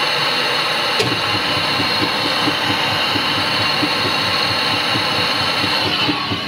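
Gas torch flame hissing steadily on a red-hot titanium bolt, the hiss dropping away near the end as the torch is pulled off. Underneath, from about a second in, a low, evenly pulsing motor runs.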